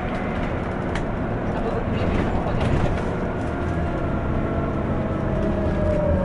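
Scania CN280UB city bus running, a steady low engine rumble with a whine that slowly falls in pitch over the second half.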